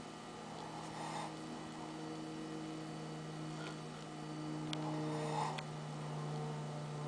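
A sleeping pet snoring, two snoring breaths about four seconds apart, over a steady low hum.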